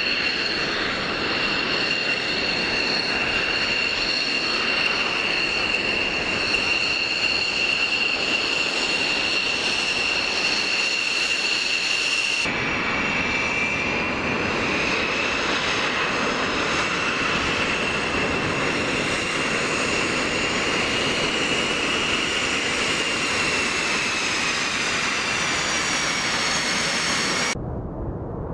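Military jet engines at taxi power: an F-16's engine runs with a steady high whine over a rushing roar. About twelve seconds in the sound cuts to an F/A-18-type twin-engine jet taxiing, its whine drifting slightly up and down in pitch. Near the end it cuts to a duller, more distant jet roar.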